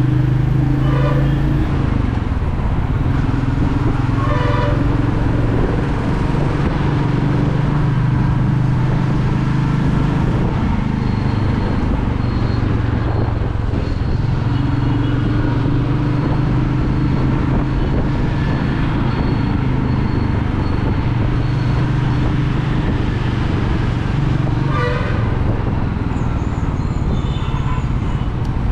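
Royal Enfield Meteor 350's single-cylinder engine running steadily while cruising, under a rush of wind and road noise. Short vehicle horn toots sound about a second in, at around four seconds, and near the end.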